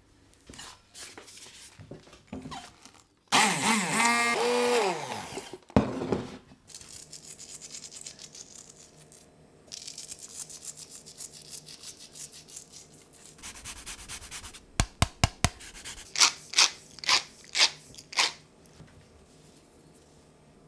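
Close-up kitchen prep sounds. A spoon clinks in a glass jug, then about three seconds in a hand blender runs loudly for about two seconds, its pitch falling, and stops with a sharp click. After that, seasoning is sprinkled and rubbed onto raw pork chops in a ceramic dish, ending in a quick run of sharp strokes.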